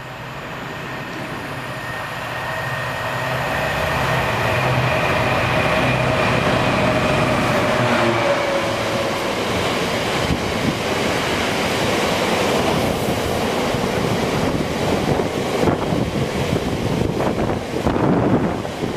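An InterCity 225 express, a Class 91 electric locomotive with Mark 4 coaches, approaching and passing at speed. A rising rumble with a whine that dips slightly in pitch gives way to fast, dense wheel clatter as the coaches go by.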